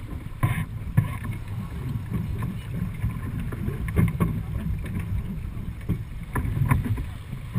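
Dufour 45e sailing yacht under way: wind buffeting the microphone in a gusty low rumble over the rush of water along the hull. A few sharp knocks cut through, about a second in, near the middle and near the end.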